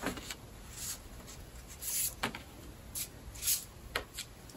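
Folded paper triangles being set down and slid across a tabletop: soft paper rustles and light taps, several in a row.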